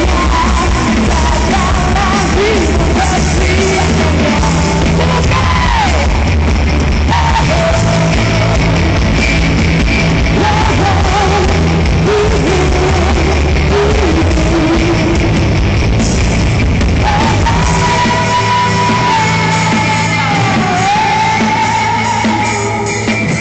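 Rock band playing live with a singer belting and shouting over guitars, bass and drums, echoing in a large hall. About eighteen seconds in the bass drops away, leaving a long held note over the lighter band.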